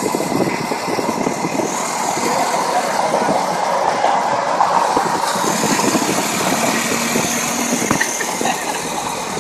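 Steady rush of wind and road noise at highway speed, heard through an open car window, with rapid irregular buffeting.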